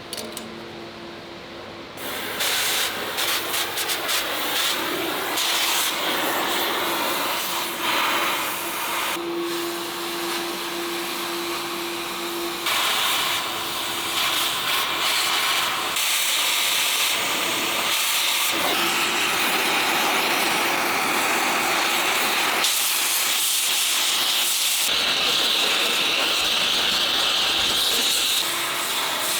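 Oxy-fuel cutting torch hissing steadily as it cuts through the cast armour steel around a KV-1S tank turret's vision slit, starting about two seconds in.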